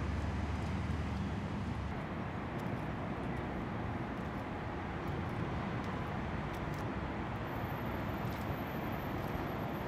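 Steady outdoor city ambience: a continuous wash of distant traffic noise, with a heavier low rumble in the first couple of seconds and a few faint ticks.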